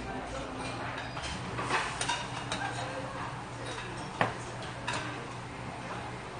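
A steel ladle clinking against a stainless steel pot as broth is scooped out and poured into a bowl: a handful of scattered metallic clinks over a steady low hum.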